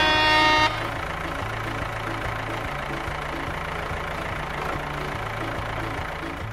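A vehicle horn sound effect, one steady note, cuts off within the first second; then a dubbed tractor engine sound effect runs steadily. Background music with a repeating bass line plays throughout.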